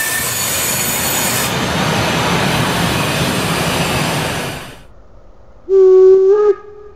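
Steam-hauled passenger coaches rolling past close by, wheels running on the rails with a high squeal in the first second or so; the sound cuts off abruptly about five seconds in. Then a steam locomotive whistle sounds one short, loud blast of under a second, and a faint tone of the same pitch lingers after it.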